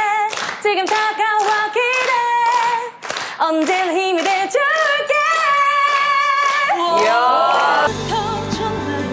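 A young woman singing a cappella, holding notes with a wavering vibrato over a steady beat of sharp strokes. About eight seconds in, it cuts to a staged song performance with sustained instrumental accompaniment.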